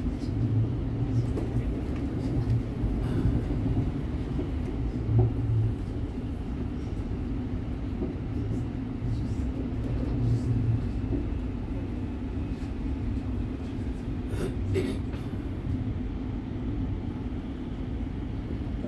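Siemens Nexas electric suburban train heard from inside the carriage while running between stations: a steady low rumble of wheels on rail with a constant hum. A few brief sharp clicks come late on.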